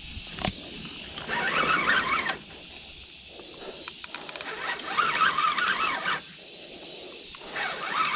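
Fishing reel drag ratcheting out line in three short runs as a hooked fish pulls against the rod.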